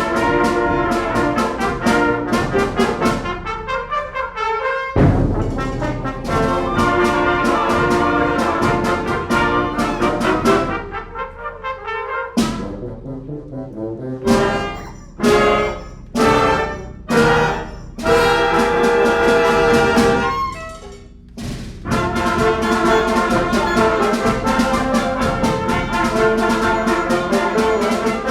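Youth concert band playing a fast galop, brass to the fore, with trumpets and trombones prominent over a steady beat. Partway through, the music breaks into short, separated chords with brief gaps between them, then the full band picks up again near the end.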